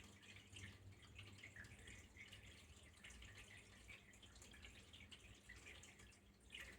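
Faint water trickling and dripping, an irregular patter of small drops.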